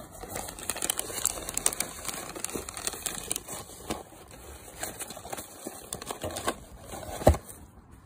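Crinkling and rustling of shredded paper filler and plastic treat packets as a dog roots through a gift box, with many small crackles. A louder thump comes about seven seconds in.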